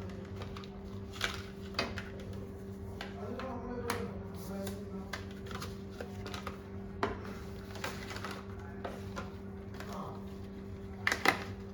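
Scattered clicks and taps of hands fitting two 2.5-inch SSDs into a plastic-and-metal drive bracket, with a quick double click near the end, over a steady low hum.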